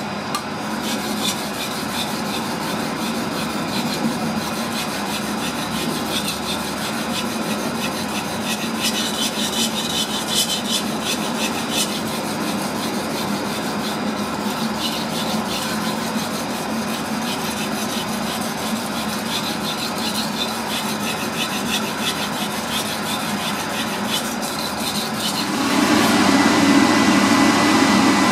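Japanese kitchen knife sharpened on a whetstone: the steel edge scraped back and forth across the stone in repeated gritty strokes. Near the end the strokes stop and a louder, steady rushing noise takes over.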